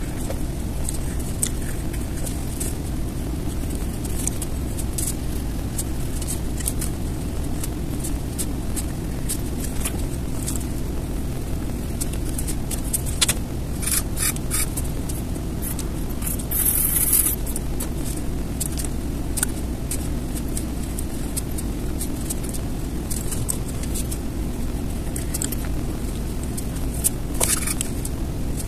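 Steady low rumble of background noise, with scattered light clicks and a brief scrape a little past the middle.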